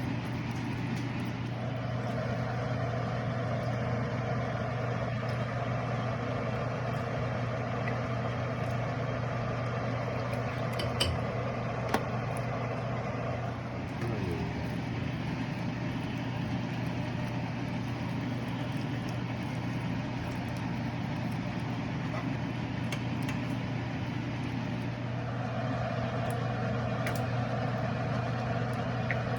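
A steady machine hum throughout, with a second, brighter layer that comes in about two seconds in, drops out about halfway through and returns near the end. There are a couple of light clicks in the middle.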